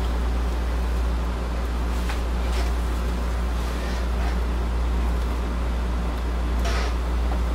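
Steady low background hum, with a few faint light clicks about two seconds in and again near the end.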